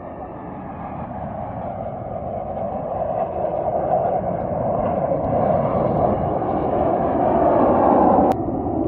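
Jet engine roar from Patrouille de France Alpha Jets flying past, growing steadily louder, then a click and a sudden drop in level about eight seconds in.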